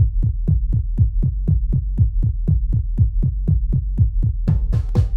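Electronic music track built on a drum machine: a deep kick drum pulses about four times a second over a low bass, and brighter drums and cymbals come in near the end.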